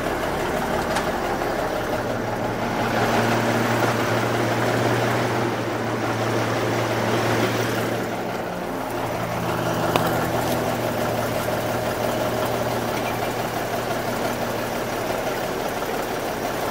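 Big Cam Cummins inline-six diesel in a 1985 Peterbilt idling steadily, with a slight swell and dip in its note partway through and a single click about ten seconds in. It sounds good: an overhauled engine that runs right and doesn't smoke.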